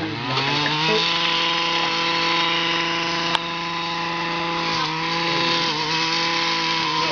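New MVVS 58 model-aircraft engine catching and revving up over about the first second, then running steadily at one speed, dipping slightly a few times in the second half. A single sharp tick sounds midway.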